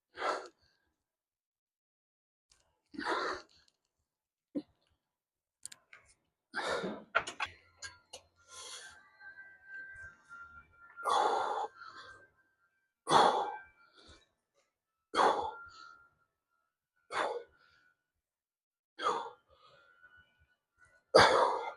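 A man breathing out hard in short, sighing breaths, about ten of them roughly two seconds apart, the effort breaths of someone lifting weights rep by rep.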